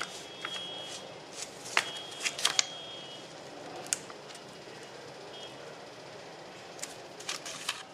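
Vinyl decal sticker and its paper backing sheet being handled and peeled apart by hand: scattered sharp crackles and ticks over a steady hiss.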